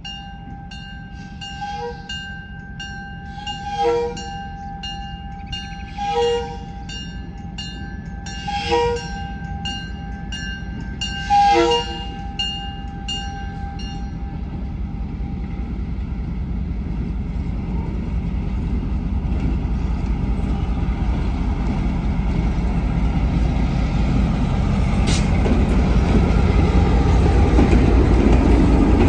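A bell ringing about twice a second, broken by four short horn toots. The bell then stops, and the EMD GP7's diesel engine rumbles louder and louder as the locomotive draws near and passes, loudest at the end.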